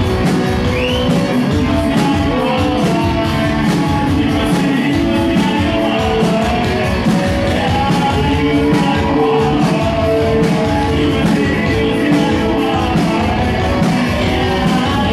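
Loud live rock band playing: electric guitar and drums, with singing.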